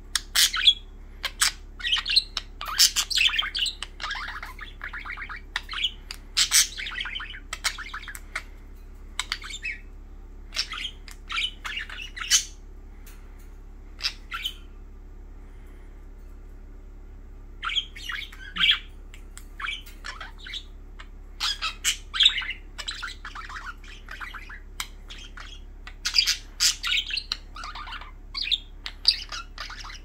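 Budgerigars chattering: quick chirps, squawks and warbling in dense bursts, with a pause of a few seconds about halfway through. A faint steady hum lies underneath.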